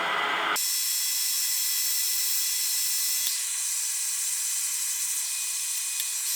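Sandpaper hissing against a pen blank spinning on a wood lathe, with the lathe's steady high whine. From about half a second in the sound turns suddenly thin and high, with no low end.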